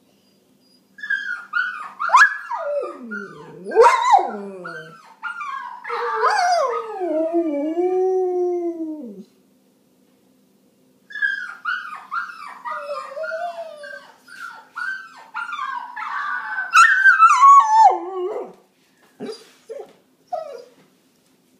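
German Shepherd howling in two long bouts of wavering calls that slide up and down in pitch, with a pause of about two seconds between them, then a few short calls near the end.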